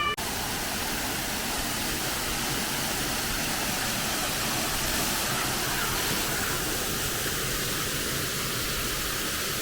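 Steady rush of falling, splashing water, an even hiss that holds the same level throughout.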